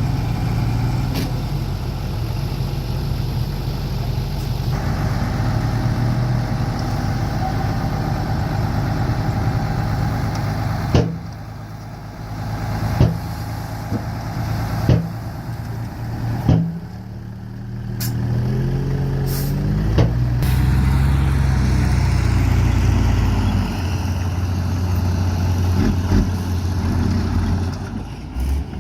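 Heavy diesel dump truck engines running steadily. Several sharp knocks come through the middle, and an engine revs up a little later.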